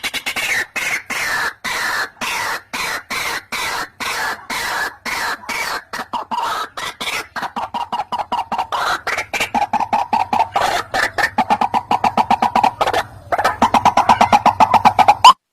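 White-breasted waterhen (ruak-ruak) calling: a long, rapid run of short, harsh repeated notes, several a second, growing louder toward the end after a brief break. This is the bird's territorial call, played as a lure to bring other waterhens in.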